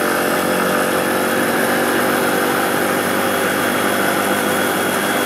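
A 125cc motorcycle engine running at a steady cruising speed, a buzzy single engine note over the rush of wind and road noise.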